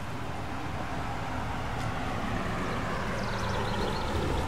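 A car approaching on the street, its tyre and engine noise growing steadily louder.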